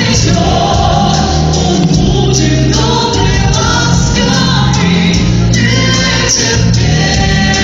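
Singing with instrumental accompaniment, the voices holding long notes over a steady bass line.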